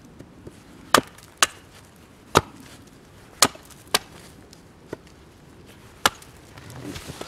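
Hultafors hand axe chopping into the end of a wooden stick resting on a stump, shaping a point: about seven sharp strikes, irregularly spaced, roughly one a second.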